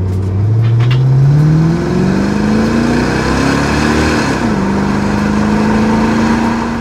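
1994 Chevrolet Corvette's 5.7 L LT1 V8 accelerating, its pitch climbing steadily for about four seconds, then dropping as the automatic transmission shifts up and holding steady at cruise.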